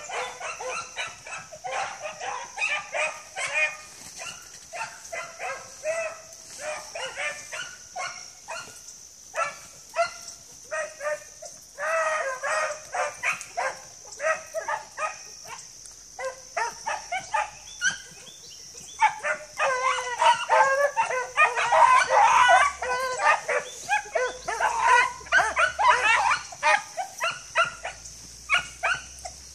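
A pack of beagles baying and yelping in overlapping chorus, the hound music of a pack running a scent trail. The cry swells, loudest and thickest about two-thirds of the way through, then thins out toward the end.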